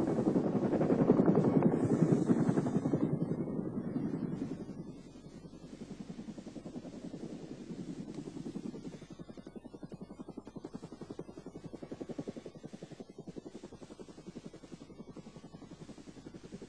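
Mi-8 helicopter running, its main rotor beating fast and steadily over the turbine noise. It is louder for about the first four and a half seconds, then drops to a lower, steady level.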